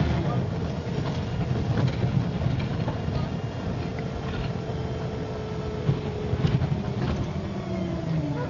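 MCW Metrobus double-decker running, a steady rumble with a drone that holds one pitch and then falls away near the end as it eases off.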